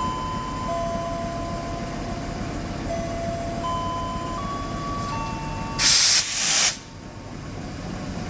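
CC201 diesel locomotive's two-tone air horn giving one short two-part blast about six seconds in, loud and harsh, over a steady low rumble. Before it, faint steady tones step from one pitch to another.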